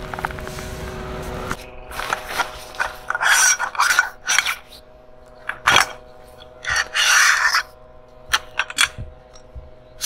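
Tent fabric and a tent pole being handled: rustling and scraping in short, irregular bursts, with a few sharp clicks as the pole is worked.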